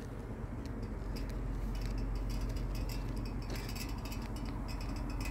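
Steady low rumble of outdoor background noise, with scattered light ticks and clicks that bunch up about three and a half seconds in.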